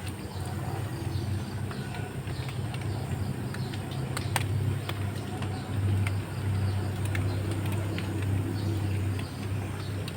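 Outdoor ambience of small birds chirping now and then over a steady low rumble that swells about six seconds in, with one sharp click about four seconds in.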